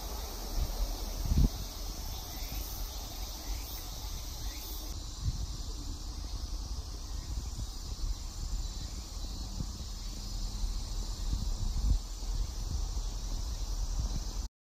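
Outdoor ambience with a steady chorus of insects, broken by a few low thumps and rumbles. The sound cuts off suddenly near the end.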